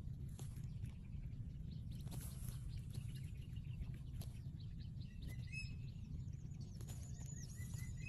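Steady low outdoor rumble with scattered faint snaps and clicks as an eagle tears at its feathered prey in dry grass. From about five seconds in, a small bird chirps a quick run of high notes.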